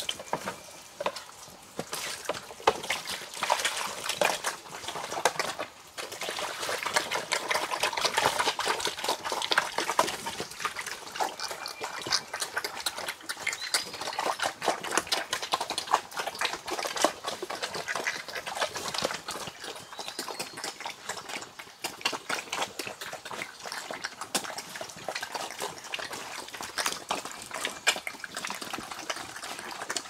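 Pigs eating wet feed (slop) from a trough: a dense, unbroken stream of wet chomping, smacking and slurping.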